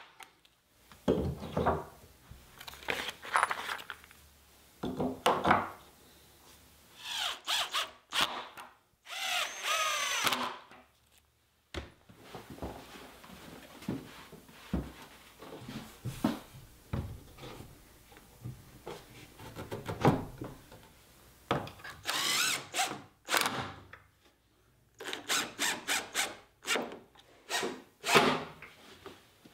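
Cordless drill running in short bursts, its motor spinning up and down as it pre-drills and drives screws to fasten invisible hinges into a door and its jamb. A quieter stretch in the middle holds scattered knocks and thumps of the door being handled.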